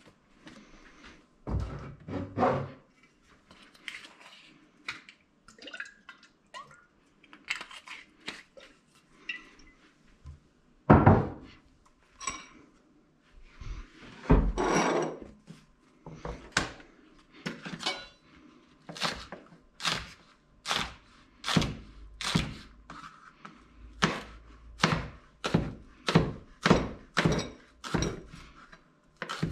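Chef's knife chopping spring onions on a cutting board, a steady run of knocks about two a second through the second half. Before that, scattered clatter of kitchen items set down on the counter, with a bright clink about twelve seconds in.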